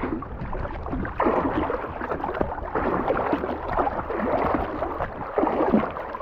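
Water splashing and sloshing around a belly boat's inflatable pontoons as swim fins kick at the surface, in an uneven run of short rushes.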